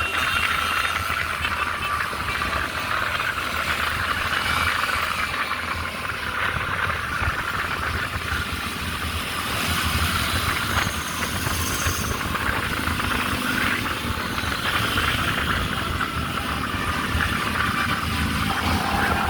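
Steady road-traffic noise: vehicle engines running with a rattling hiss and a low rumble.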